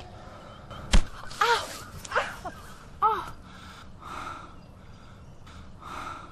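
A single sharp whack of a blow about a second in, then three short, arching cries from a woman, followed by a couple of softer breathy gasps.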